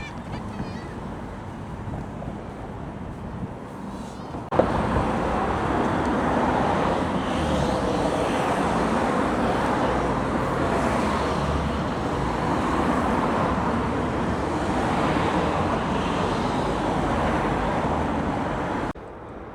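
Steady road traffic noise with no distinct events, quieter at first and then louder from an abrupt cut about four and a half seconds in, stopping abruptly just before the end.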